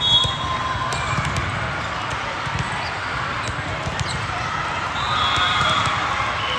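A ball bouncing repeatedly on a court floor during a game, with faint voices of players and spectators.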